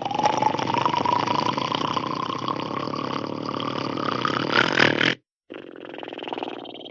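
Hanna-Barbera cartoon snore sound effect: a long, loud, rough snore with a whistling tone that rises slowly in pitch, cutting off suddenly about five seconds in. After a brief gap a softer second breath follows and fades.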